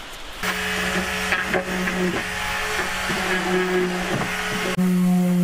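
Handheld electric sander starting up about half a second in and running steadily with a high motor whine, sanding a stitch-and-glue plywood kayak. A brief dropout comes near the end, after which it runs louder.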